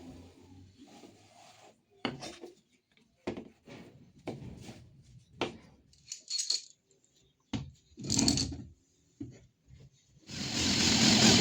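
Wooden workpieces and tools being handled on a bench: a scattered series of knocks, taps and short scrapes. About ten seconds in, a power tool starts and runs with a loud steady noise.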